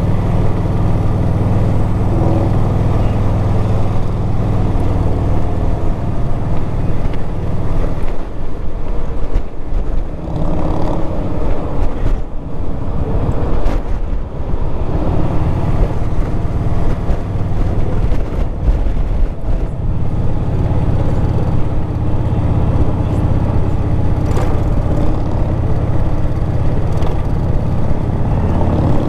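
Touring motorcycle engine running steadily at road speed, with rushing noise over it. The engine note eases back for several seconds in the middle, then comes back to its steady level.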